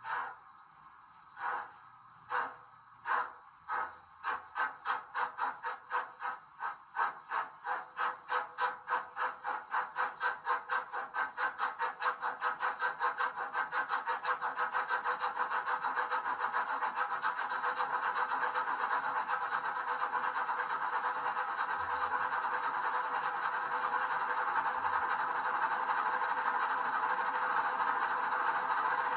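Model Royal Scot steam locomotive's sound decoder playing exhaust chuffs through its small onboard speaker as the engine pulls away. The chuffs come about once a second at first and quicken steadily, merging into a continuous rush after about fifteen seconds.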